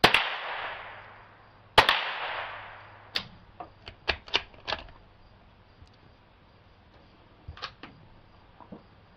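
.22 rimfire rifle shots, two of them about two seconds apart, each with a long echoing tail. A second or so later the bolt of the Glenfield Model 20 bolt-action .22 is worked in a quick run of clicks, and a few faint clicks come near the end.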